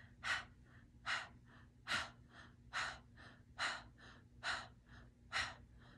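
A woman doing breath-of-fire breathing through an open mouth, pumped from the upper belly: sharp, quick breaths at a steady rhythm, a strong one a little more than once a second with a softer one between each pair.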